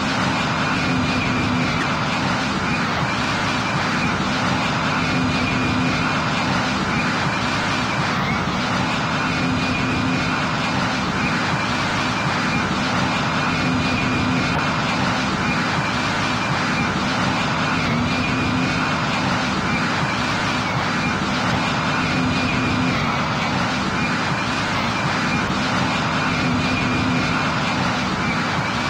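Steady jet aircraft noise from a cargo jet in flight: engine and airflow noise with a low hum and a faint higher whine running through it.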